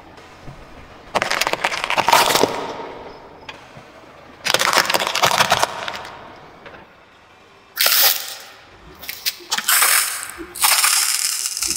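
A car tyre crushing small objects on asphalt one after another: candies, plastic toys and a plastic bottle. The result is about five separate bursts of crunching and cracking, each lasting up to a second or so. Near the end a burst of spraying liquid is heard as the bottle is squashed.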